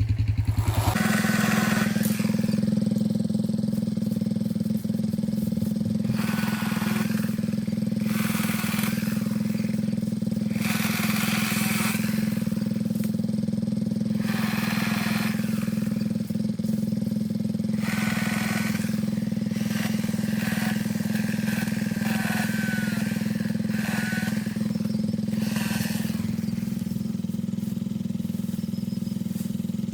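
A motor starts running at a steady high speed about a second in and holds the same pitch. Short bursts of rasping noise come every two to three seconds over it.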